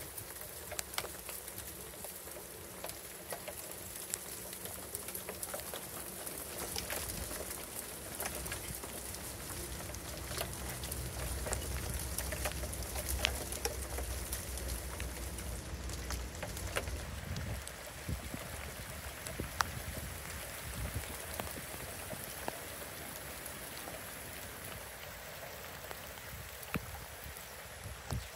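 Small ice pellets falling steadily, pattering and ticking on shrub leaves, grass and pavement. A low rumble swells in the middle and then stops abruptly.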